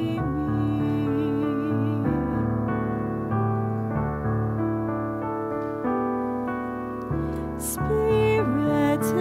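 Slow, gentle keyboard music: held piano chords that change every second or two, under a sustained melody that wavers in pitch.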